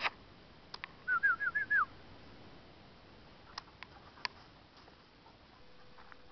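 A person whistling a quick run of five short notes, each rising then dropping, calling a dog. A few sharp clicks come before and after.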